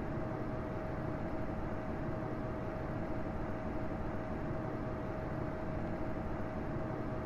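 Steady, unchanging rushing noise, heaviest in the low range, with a constant mid-pitched hum running through it.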